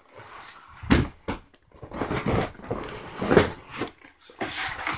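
Cardboard airsoft-gun box being opened: irregular scraping and rustling of cardboard as the lid is worked loose and lifted, with a few knocks.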